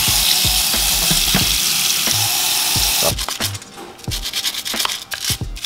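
Kitchen tap running into a stainless-steel sink as spinning-reel parts are rinsed under the stream. The water stops about three seconds in, and scrubbing and small clicks of the metal parts being handled follow.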